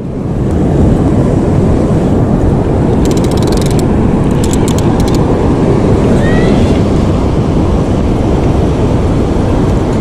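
Heavy ocean surf rushing loudly and steadily with a deep rumble, with a few faint clicks about three to five seconds in.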